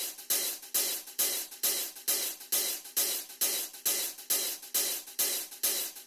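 Music: a song intro with a steady hi-hat and cymbal beat, a stroke about every half second.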